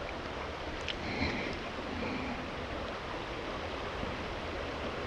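Steady rushing outdoor background noise, with a faint tick or two about a second in.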